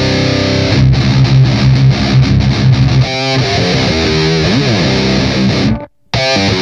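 Electric guitar heavily distorted through an Electro-Harmonix Nano Metal Muff pedal and a 4x12 cabinet simulator. A held chord rings, then fast chugging low notes are picked, then bent, wavering lead notes follow. Near the end the sound cuts off abruptly for a moment, then comes back.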